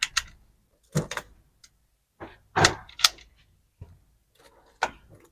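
Firearm being handled and loaded: a string of sharp metallic clicks and clacks, some in quick pairs, spaced irregularly.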